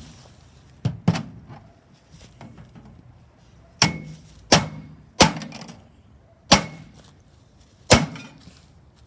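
A bat striking a microwave oven again and again: about seven hard blows, the first two in quick succession about a second in, then single blows roughly every second, some with a short ring after the hit.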